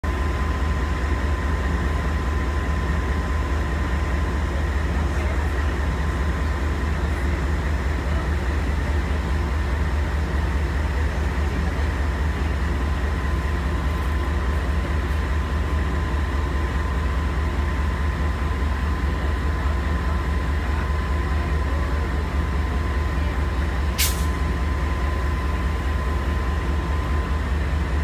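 Diesel-electric freight locomotives running as they move a cut of freight cars through the yard: a steady low engine rumble with a steady high whine over it.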